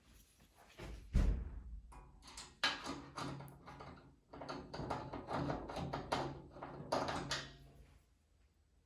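Hands working on a plastic Packout top and cleat: a heavy thump about a second in, then several seconds of knocking, scraping and plastic clatter that stops near the end.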